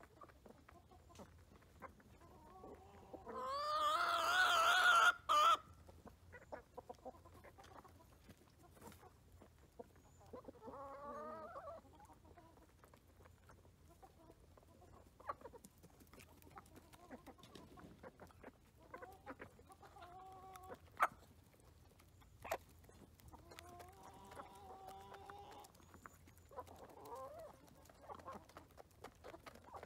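Chickens calling: a loud, drawn-out call about three seconds in, then softer clucks and calls scattered through, with a few sharp taps.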